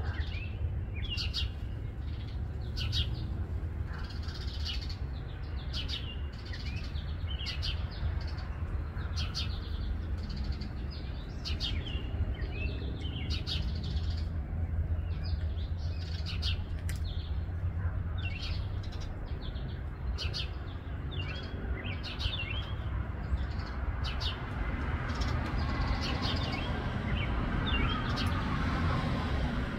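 Small birds chirping in short, repeated calls, about one or two a second, over a steady low rumble that grows a little louder near the end.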